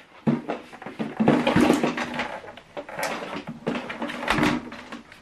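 A plastic soundbar being handled, turned over and set down on a tabletop, with irregular knocks, scrapes and cable rubbing, and a heavier knock near the end.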